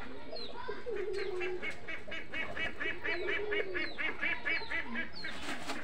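Domestic pigeons cooing low, over a fast even run of short, higher-pitched calls from another bird, about five a second, from near the second second to near the end.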